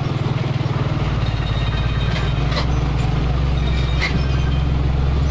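Mitsubishi Fuso 220PS self-loader truck's diesel engine running steadily as the loaded truck drives slowly past, its low rumble deepening about a second in, with a few crunches of tyres on gravel.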